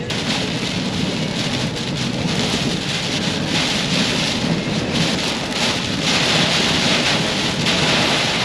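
Heavy rain pounding on the windshield and roof of a moving vehicle, heard from inside the cab; the downpour grows louder about halfway through.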